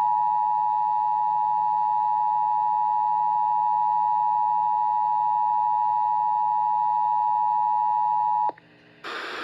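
Emergency Alert System attention signal: a steady two-tone alert (853 Hz and 960 Hz together), held for about eight and a half seconds and cutting off abruptly near the end.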